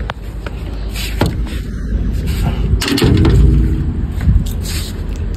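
Footsteps and phone handling noise while walking across a tiled floor, over a steady low rumble, with a few scattered knocks.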